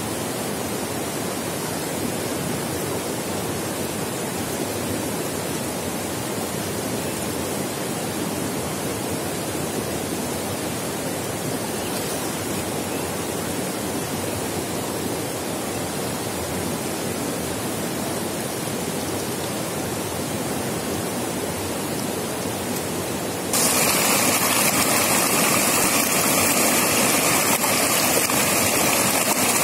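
Shallow rocky river running steadily over stones. About 23 seconds in the sound jumps suddenly louder and brighter as the rapids are heard close up.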